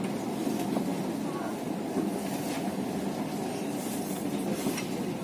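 Steady rumble of a passenger train rolling along the track, heard from inside the carriage.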